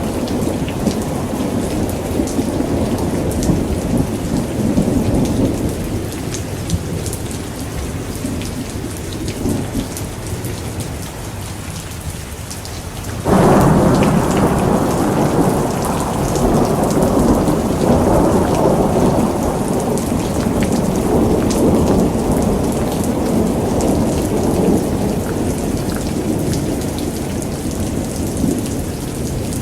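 Thunderstorm: steady rain pattering, with thunder rumbling. The rumble fades over the first dozen seconds, then a sudden loud crack of thunder about thirteen seconds in rolls on for the rest.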